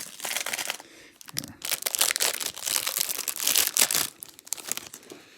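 Plastic trading-card pack wrapper crinkling and tearing as it is pulled open, stopping about four seconds in.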